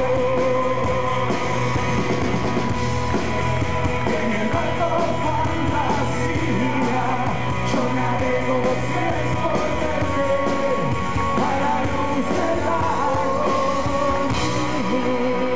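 Live rock band playing: a singer over electric guitars and drums.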